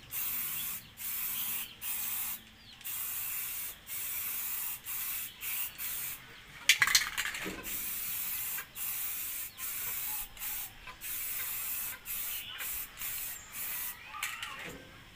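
Aerosol spray-paint can hissing in short bursts about a second apart with brief gaps between. A brief louder noise comes about seven seconds in.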